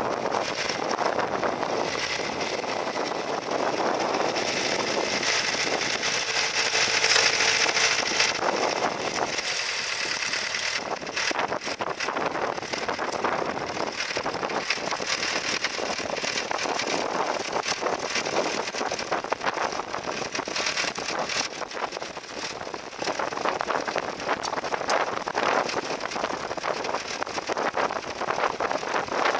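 International Harvester B-275 tractor's four-cylinder diesel engine running steadily under load while it pulls a mounted plough through stubble.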